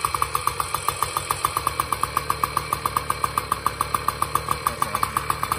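2002 Tomos Targa moped's single-cylinder two-stroke A35 engine idling just after starting, an even, rapid beat of about eight pulses a second.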